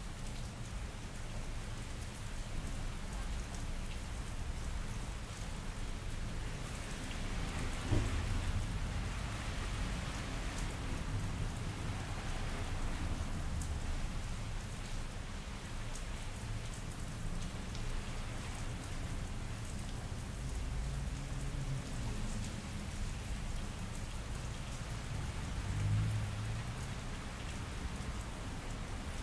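Steady rain falling on wet pavement. About eight seconds in, thunder cracks and rumbles on for several seconds, with further low rumbles later.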